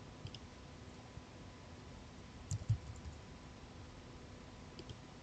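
A few faint clicks of a computer keyboard and mouse, a small cluster about halfway through as a name is typed, over quiet room tone with a faint steady hum.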